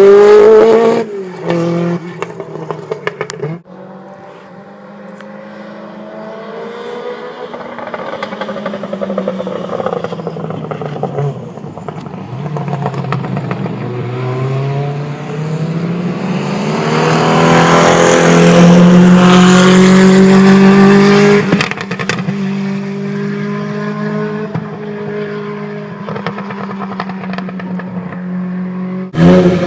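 Peugeot T16 hill-climb race car engine. It revs hard with quick gear changes and cuts off a few seconds in. Then a car is heard getting steadily louder, loudest about two-thirds of the way through, drops suddenly and runs on more quietly.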